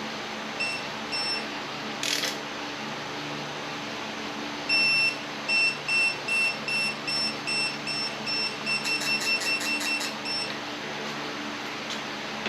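Digital torque wrench beeping as a bolt is pulled up to torque: two short beeps and a brief ratchet rasp, then a run of beeps about twice a second that come faster as the target torque nears, with quick ratchet clicks near the end.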